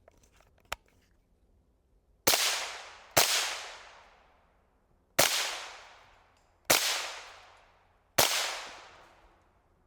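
A sharp click, then five suppressed .22 LR rifle shots from an HK G36 .22 with a JK Armament suppressor, firing CCI high-velocity rounds. The shots are irregularly spaced, one to two seconds apart, and each trails off in an echo lasting about a second.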